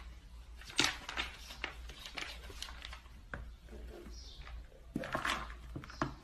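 Cat digging and scratching in a plastic litter box, kicking litter out so it scatters onto a tile floor, in irregular scratchy bursts.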